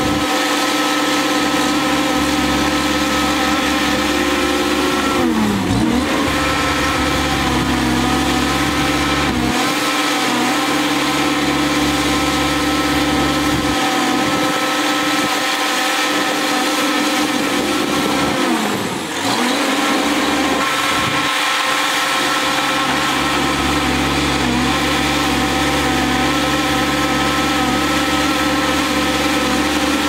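Shantui crawler bulldozer's diesel engine running steadily, its note dipping briefly and recovering twice.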